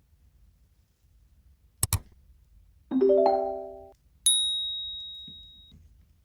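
Two quick clicks, then a short chime chord like mallet percussion that cuts off suddenly, followed by a single high bell-like ding that rings out and fades over about a second and a half.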